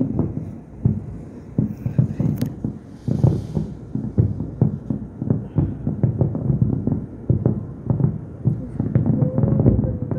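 Distant aerial fireworks display: a dense, unbroken run of low booms and pops, several a second.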